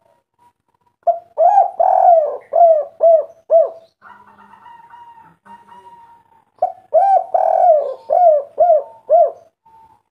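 Spotted dove cooing: two phrases, each a run of arching coos with one longer drawn-out note followed by three short end notes, the 'kuk 3' call type.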